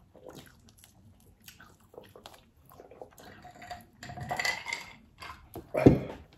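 Eating at a table: cutlery and dishes clinking and scraping, with chewing, in scattered short clicks. One loud dull thump comes just before the end.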